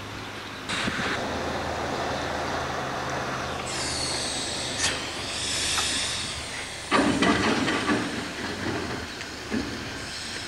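Narrow-gauge train with its engine running steadily, and a loud hiss of escaping air or steam for a few seconds in the middle. A louder clatter follows about seven seconds in.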